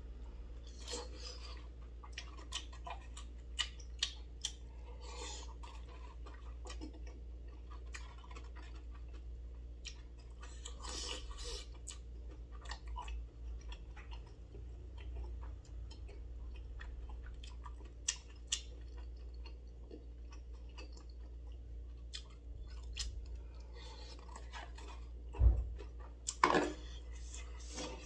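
Eating sounds of jjolmyeon noodles and tteokbokki: chewing and slurping, with light clicks of chopsticks against a bowl. A loud thump comes near the end, followed by a short rustle.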